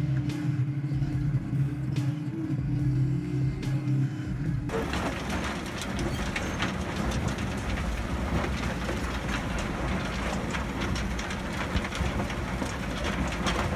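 Heavy machinery: a steady engine hum, then after an abrupt change about five seconds in, a dense crackling and crushing noise like material being shredded.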